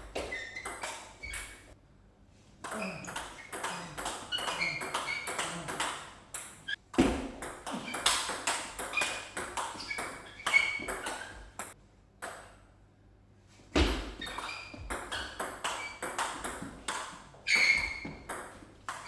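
Table tennis ball being hit back and forth, quick sharp pings of racket strikes and table bounces in several rallies broken by short pauses.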